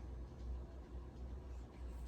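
Faint light handling noise from small pistol frame parts being handled, over a steady low hum.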